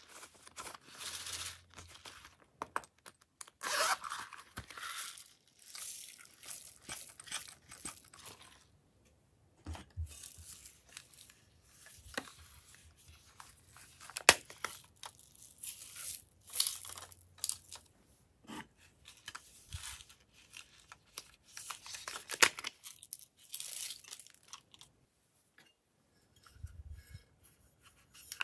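Hands handling and opening plastic toys and a plastic bottle: irregular scraping, rubbing and rustling with sharp clicks between short pauses.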